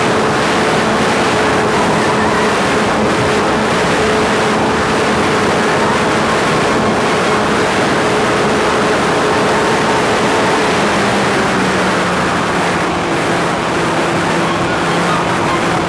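RC model plane's fuel engine running at high revs, heard from an onboard camera under heavy wind rush over the microphone. Its pitch drops slightly about eleven seconds in.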